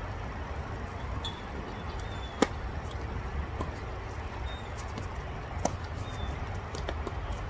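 Tennis ball struck by a racket: one sharp loud hit about two and a half seconds in, then a fainter hit about three seconds later, over a steady low rumble.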